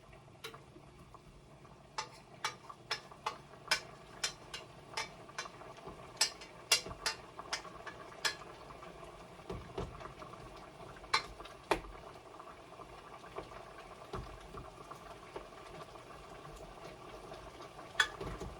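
A pot of soup simmering on the stove, with a run of sharp clicks at about two a second for several seconds, then a few scattered clicks.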